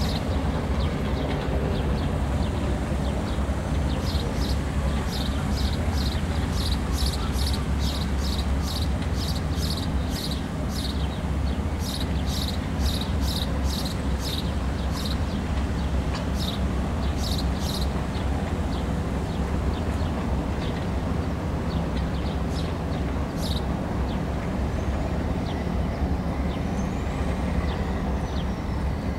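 A steady low engine rumble, with a run of short, high chirps about twice a second through much of the first half.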